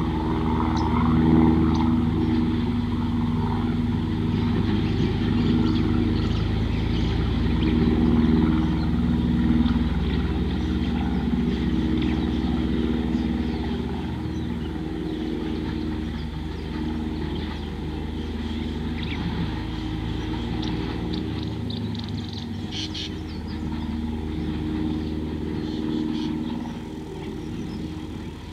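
A motor engine running steadily with an even hum, a little louder in the first half and easing off about halfway through.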